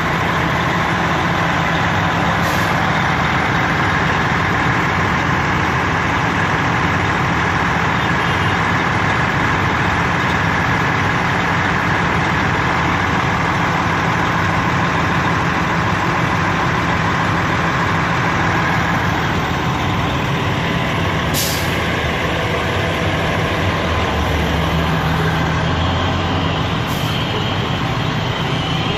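A fire ladder truck's diesel engine runs loudly and steadily close by, a constant low drone. Three short high hisses cut through it, about two, twenty-one and twenty-seven seconds in.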